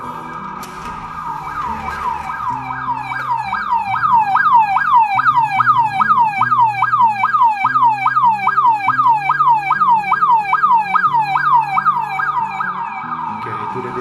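External electronic siren of a home security alarm system going off in fast repeating falling sweeps, about three a second, set off by the window vibration sensor as for a broken window: the intrusion alarm has been triggered. It grows louder over the first few seconds and fades near the end.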